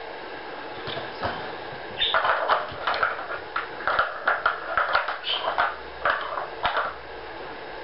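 Hard plastic blocks of a Nina Ottosson Dog Smart puzzle clicking and clattering as they are set one after another into the plastic board: a quick, uneven run of knocks that starts about two seconds in and stops about a second before the end.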